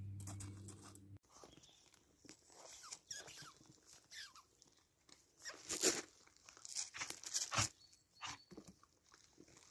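A steady low hum stops abruptly about a second in. Then comes a run of irregular crunching and crinkling noises, loudest around the middle, as a border collie grabs and mouths a rope toy.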